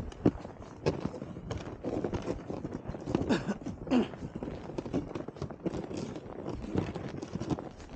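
Footsteps crunching through snow at a walking pace, about two steps a second, over the steady scrape of sleds being dragged across the snow.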